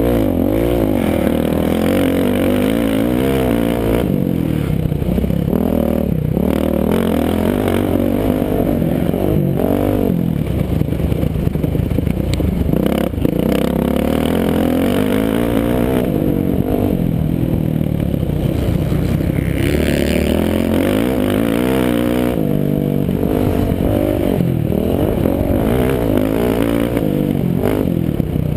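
Four-stroke single-cylinder motocross bike engine at race pace, revving up and falling back over and over as the rider accelerates, shifts and brakes for corners.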